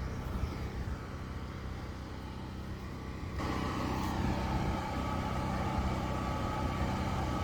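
A steady engine-like hum that steps up louder about three and a half seconds in.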